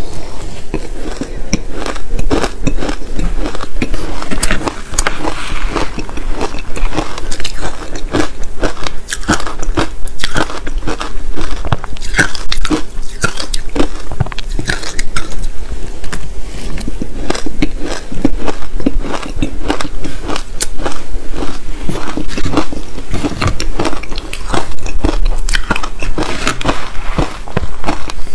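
Close-miked biting and chewing of soft, powdery ice dusted with matcha and buckwheat powder: a dense, continuous run of crisp crunches and crackles.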